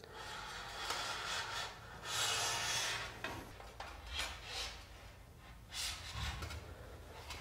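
Aluminium extrusion rail of a solar-panel mounting frame being slid and pushed against a plastic-capped corner fitting, scraping and rubbing in several short strokes, the longest and loudest about two to three seconds in.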